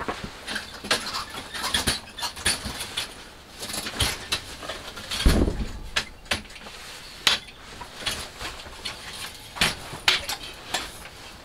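Tubular metal folding camp lounger being lifted, tipped up on end and handled: a string of sharp clicks and clanks from its frame, with a heavier thump about five seconds in.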